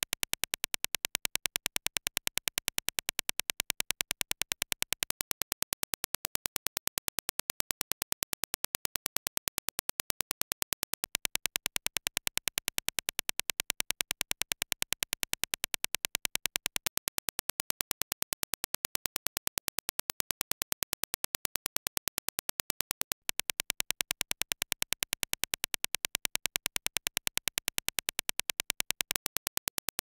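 A rapid, even train of sharp clicks: the Dirac impulse test signal reproduced by Yamaha YH-5000SE headphones with suede earpads and picked up by a measurement microphone. The level steps slightly every six seconds or so, with a brief break about three-quarters of the way through.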